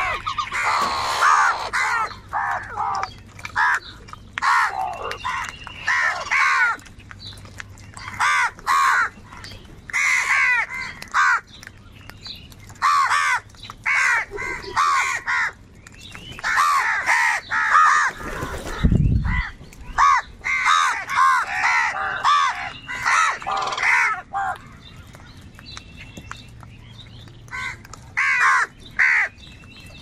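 A flock of house crows cawing over and over, many harsh caws overlapping with short gaps between bouts, easing off for a few seconds near the end. About two-thirds of the way through a brief low rumble lasts about a second.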